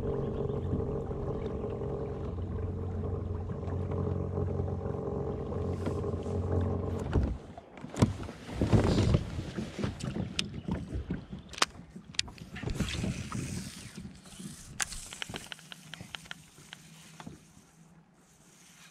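Watersnake electric trolling motor on a kayak running with a steady hum, cutting off about seven seconds in. Then scattered clicks and knocks of a baitcasting rod and reel being handled and cast.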